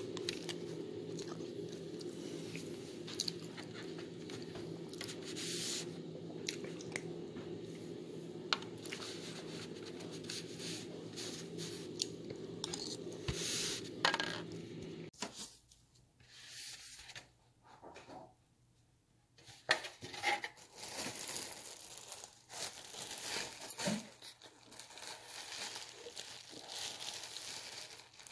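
Plastic packaging crinkling and tearing, with scattered handling clicks. A steady low hum runs underneath and cuts off suddenly about halfway through.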